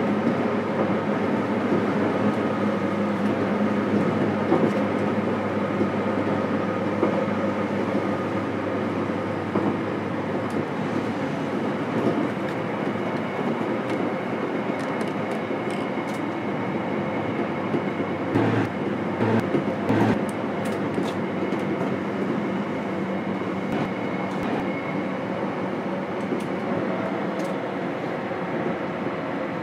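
Steady running noise inside a JR Kyushu 813 series electric multiple unit's motor car at speed: wheel-on-rail rumble with the constant hum of the traction equipment. About two-thirds of the way through, a short run of clacks as the wheels pass over rail joints.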